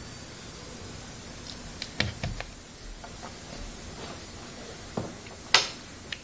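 Steady hiss with a few sharp handling clicks and knocks from a mobile phone held and moved against glass: a pair about two seconds in and another near the end, where the loudest one falls.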